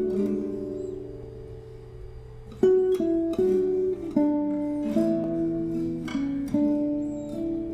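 Background music: a gentle tune of plucked guitar notes. It dies down softly about a second in, and a new phrase starts about two and a half seconds in.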